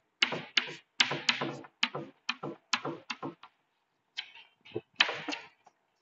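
Chalk on a blackboard drawing a dashed line: a quick series of short chalk taps and scrapes, about three a second, with a brief pause a little past halfway.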